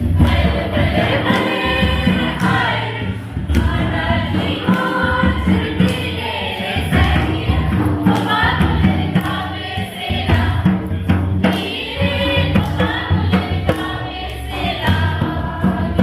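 A group of voices singing a Karam festival song together, accompanied by steady drum strokes.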